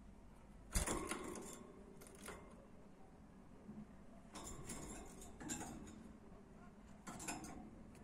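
Budgies moving about a wire cage, their beaks and feet clicking and tapping on the wire bars and plastic seed feeders in four short bursts.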